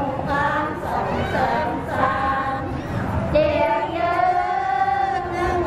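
A group of voices chanting together in unison, drawing out long held notes; one note is sustained for about two seconds near the end.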